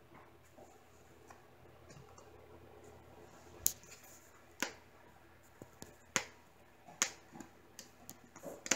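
Scattered sharp clicks and taps, about six in the second half, from hands handling and shifting a finished diamond painting canvas on a table.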